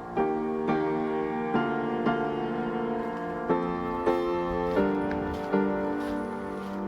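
Background music: slow piano, notes and chords struck every half second to a second and left to ring.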